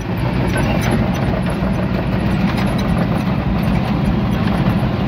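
Steady low engine and road noise heard from inside a vehicle's cab while driving, with heavy tipper trucks passing close alongside.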